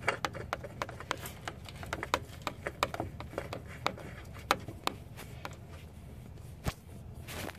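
A new spin-on oil filter being turned onto its threaded mount by hand: a run of light, irregular clicks and ticks as the hand works the filter and brushes the parts around it.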